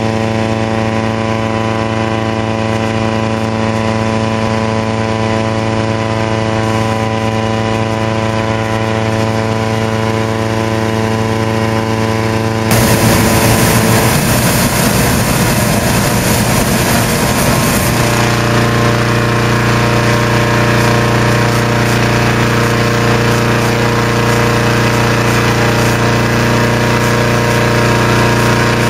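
Engine-driven inflator fan running steadily, blowing cold air into a hot-air balloon envelope laid out on the ground. About halfway through it gets louder and rougher for a few seconds, then settles back to an even run.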